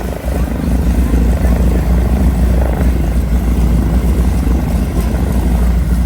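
Vintage propeller airplane's radial engine running steadily, a loud, even, deep drone.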